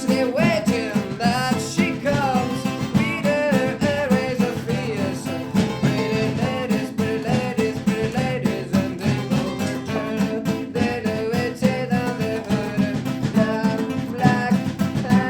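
Acoustic band playing live and unmixed: guitars strummed in a steady rhythm over bass and percussion, with a wavering lead melody line on top.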